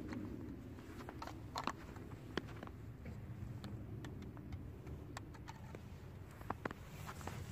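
Faint scattered clicks and light knocks of a child handling plastic toy cars and a toy dump truck in snow, over a low steady rumble.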